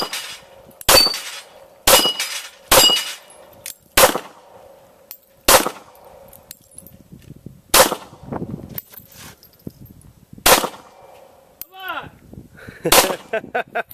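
Handgun shots fired at steel plate targets, about nine in all: the first four come about a second apart, then the pace slows. Several shots are followed by a short metallic ring from a steel plate being hit.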